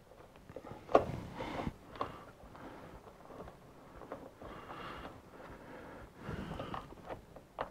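Faint scattered clicks and taps of a plastic sun visor bracket being pushed and shifted against the headliner while its locating posts are seated, with soft rustling in between.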